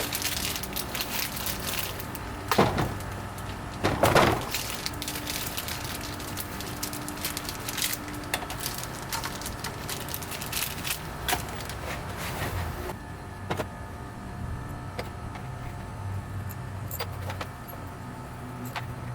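Scattered metal clinks and knocks as a quick-release hub is fitted and bolted onto an aftermarket steering wheel, with two louder knocks about two and a half and four seconds in, over a steady low hum.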